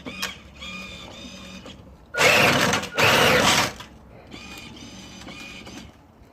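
A 12 V ride-on toy Jeep's dual electric motors and gearboxes whine in short spurts as it is driven by remote control. About two seconds in there are two loud bursts of rushing noise, each under a second long.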